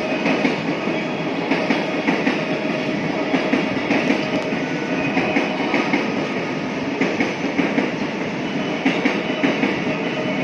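185 series electric train rolling out of the station, its wheels clacking over rail joints in irregular clusters.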